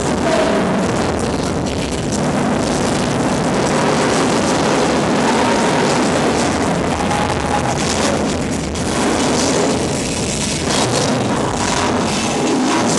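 Loud music playing over a stage sound system.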